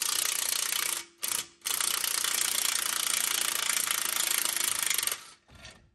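Cordless impact wrench hammering on the 21 mm bolts that hold the rear spindle to the lower control arm. It runs for about a second, gives a short blip, then runs again for about three and a half seconds before stopping.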